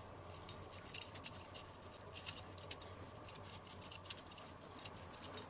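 Metal fork spreading mustard over thin slices of raw beef on a wooden cutting board: irregular light clicks and scrapes as the tines drag through the paste and tap the meat and board.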